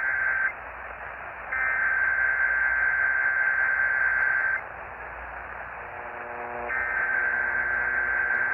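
Emergency Alert System SAME header data bursts received over AM radio: one burst ends half a second in, another runs about three seconds, and a third starts near the end. About six seconds in, the two-tone EAS attention signal starts under them, with steady AM static throughout.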